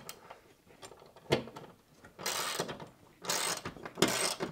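Socket ratchet tightening the mounting bolts of a steel TV wall-mount bracket into the wall, with a sharp click at the start and a knock about a second in, then, from about two seconds in, three strokes of rapid pawl clicking, each about half a second long. The bolt is being driven home.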